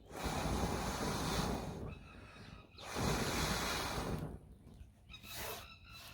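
A person blowing hard onto a smouldering ember in a tinder nest to bring it to flame: two long breaths of about a second and a half each, then a shorter, weaker puff near the end.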